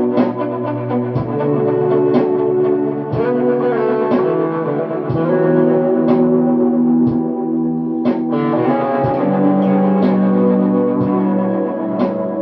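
Squier Telecaster electric guitar played slowly through reverb and delay pedals into a clean amp. Picked notes come about once a second, and each rings on and overlaps the next in a sustained ambient wash.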